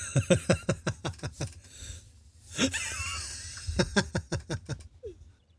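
A man laughing in two bouts of quick repeated bursts, with a pause of about a second between them.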